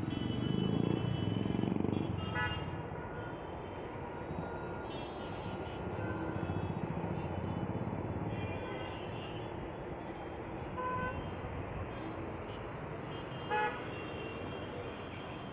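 City street traffic noise with a few short vehicle horn toots. The loudest toot comes near the end.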